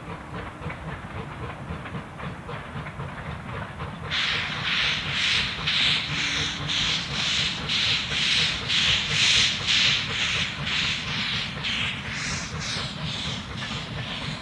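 Northern Central Railway No. 17 'York', a 4-4-0 American-type steam locomotive, working a train of passenger cars, its exhaust chuffing in an even rhythm. About four seconds in, the chuffs turn suddenly much louder and sharper and keep their steady beat.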